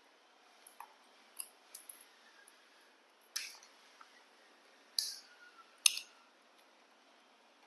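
Sharp, crisp cracks of sunflower seed shells being bitten open by young macaques, with lighter clicks of seeds being picked from a plastic tray. Scattered single cracks; the three loudest fall in the second half.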